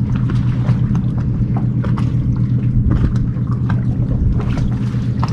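Outboard motor of a small boat idling steadily, with scattered light clicks over it.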